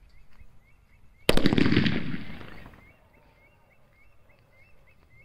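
A medium-size sutli bomb (twine-bound Indian firecracker) goes off with a single loud bang a little over a second in, its echo dying away over about a second and a half.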